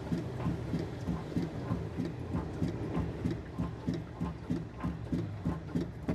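Front stabilizer bar bushing on a 2012 Citroën C3 knocking again and again, about three times a second, as the car body is rocked by hand. The knock comes from play in the bushing: the bushing is loose even though it looks new.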